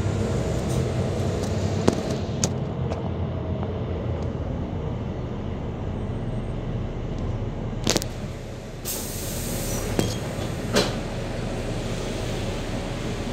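Bus diesel engine running under way, heard from inside the passenger saloon, with occasional sharp knocks and rattles from the body and a short hiss of air about nine seconds in.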